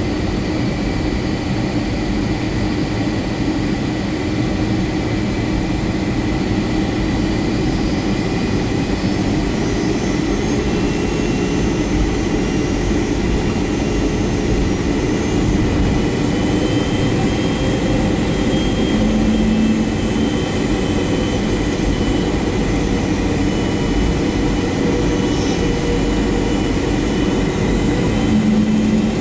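Inside the cabin of a Boeing 757-300 taxiing: a steady jet engine hum with a constant whine, and a higher whine joining about halfway through.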